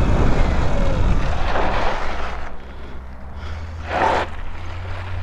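Wind rushing over the microphone of a moving motorbike, easing off about two and a half seconds in as the bike slows. A low steady hum remains after that, with one brief noisy swell about four seconds in.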